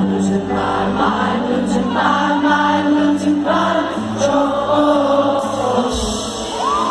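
Indie rock band playing live, with sung vocals over held notes.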